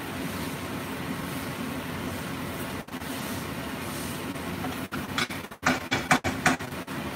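Spatula stirring vegetable stuffing in a frying pan, with a quick run of about five scrapes a little after halfway, over a steady hum.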